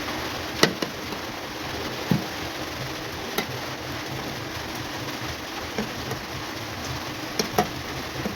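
Steady hiss of rain falling outside, with a few sharp clicks and soft knocks of utensils on a plate now and then.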